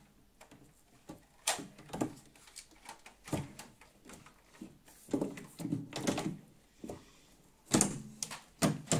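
Drawer of an IKEA MICKE desk being fitted into the desk: a series of separate knocks and short sliding scrapes as it is pushed into place, the loudest near the end.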